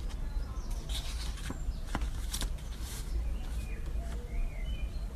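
Paper crackling and rustling in short bursts as a folded card menu is handled and opened, over a steady low rumble. A few faint chirps come near the end.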